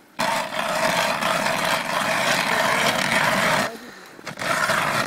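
Hand-cranked ice auger's blades grinding steadily as they cut down through lake ice. The grinding stops for about half a second a little past halfway, then starts again.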